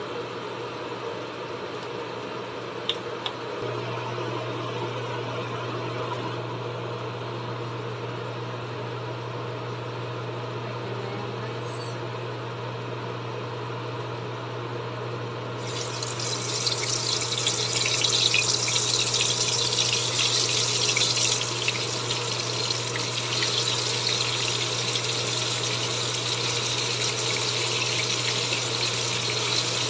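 Yogurt-marinated chicken pieces frying in hot oil in a nonstick pan. The sizzling starts suddenly about halfway through as the pieces go in, is loudest for the first few seconds, then settles to a steady sizzle. Before it there is only a steady low hum and a couple of light clicks.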